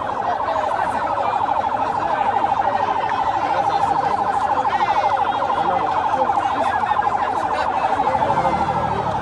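A loud, high warbling tone, pulsing rapidly and steadily like an electronic siren, over a faint jumble of voices.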